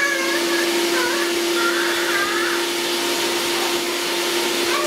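Electric food processor running loudly and steadily, grating chunks of fresh coconut meat, with a constant motor hum; it cuts off abruptly at the end.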